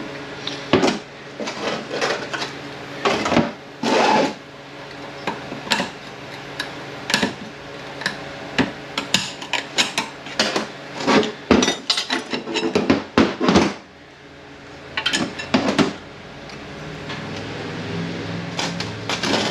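Steel parts of a 4F50N automatic transaxle (drums, planetary gear sets, clutch plates and washers) clinking and clanking against each other and the workbench as they are pulled apart and set down, in irregular sharp knocks. A low steady hum rises near the end.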